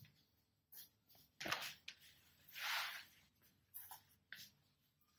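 Faint rustling and sliding of a vegetable-tanned leather hide being spread over another hide on a table: a few short scuffs and small taps, with one longer slide about two and a half seconds in.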